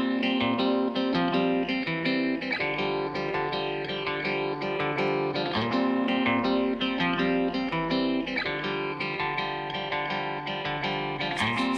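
Background music: guitar strumming and picking at a steady tempo.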